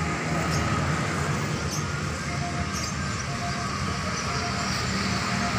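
Steady low background rumble of outdoor noise, with faint short high-pitched whistles now and then.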